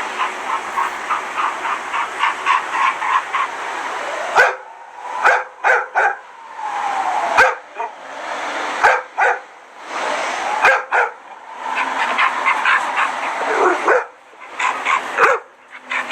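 A dog barking: a quick run of short yaps, about four a second, then single barks with gaps between them.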